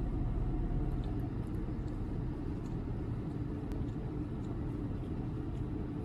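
Steady low rumble of a car heard from inside the cabin, with a few faint ticks.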